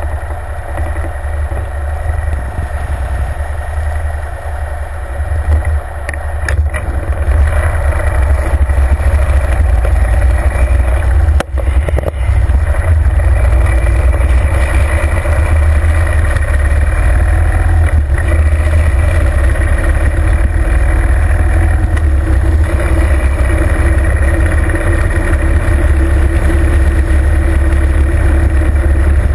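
2009 Harley-Davidson Fat Bob's air-cooled Twin Cam 96 V-twin running while the bike is ridden, mixed with wind rushing over the microphone. It is a steady, deep rumble that gets louder about eight seconds in, with a brief drop just after eleven seconds.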